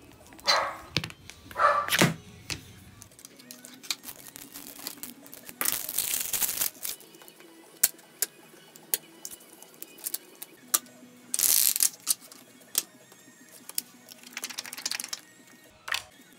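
Clicks, taps and rustles of hands handling leather pieces and small tools on a cutting mat, with a few brief louder swishes.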